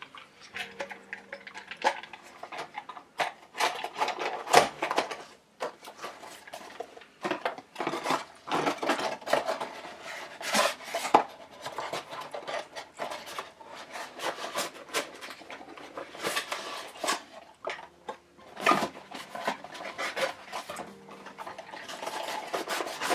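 Stock Intel CPU cooler in its clear plastic clamshell being handled and packed back into its cardboard box: irregular plastic clicks and knocks over cardboard rubbing and scraping.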